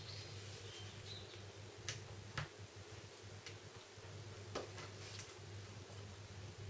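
Faint, scattered light clicks and taps, about four clear ones, as a small flathead screwdriver and fingertips work against a Samsung Galaxy S2's frame, prying the vibrate motor and headphone-jack assembly loose.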